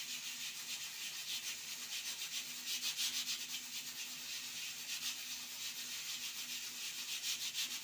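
Pressure cooker on a gas flame venting steam past its weight valve: a steady hiss with a fast flutter as the weight lifts and rattles. This is the cooker's 'whistle', the sign that it has come up to full pressure.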